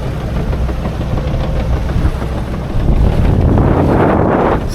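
Sailing yacht's engine running steadily under motor sail, with a rushing of wind and water. About three seconds in, a louder rush of noise swells for a second and a half.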